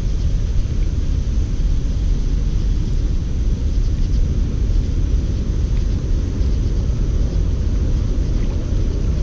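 Steady low rumbling noise, strongest in the bass and unbroken throughout.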